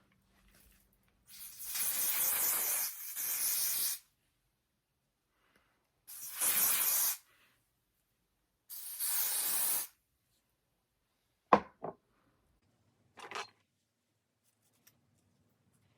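Hairspray hissing in three bursts of one to two seconds each, sprayed onto a wig's hair. These are followed by a sharp click and then a softer click a little later.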